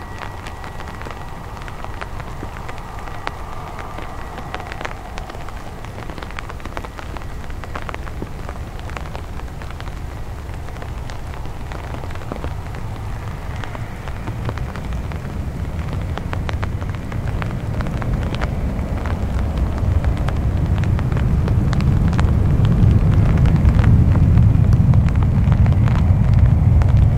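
Rain pattering on an umbrella, a dense run of sharp drop ticks, over the jet noise of a Boeing 747's four engines as it climbs away after takeoff. A faint engine whine fades over the first several seconds, then a deep rumble swells and grows louder through the last ten seconds.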